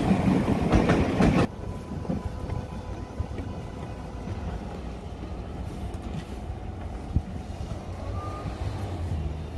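Train wheels clattering over rail joints for about a second and a half, then cutting off suddenly, leaving a much quieter steady background noise with a low hum coming in near the end.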